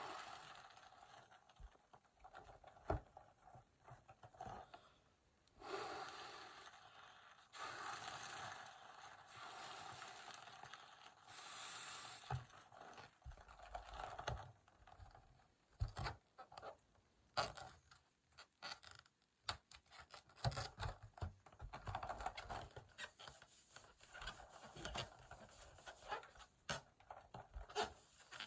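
Breath blown into a latex confetti balloon in long puffs, followed by the rubber balloon being rubbed and handled, with scraping, squeaking and many small sharp clicks.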